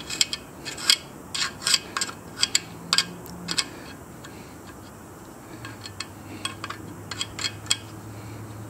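Small screwdriver scraping and ticking against the metal inside the gas fitting of a Primus camp-stove burner, picking out a spider-web blockage. It is a quick run of sharp metallic scrapes and clicks that thins out after about five seconds.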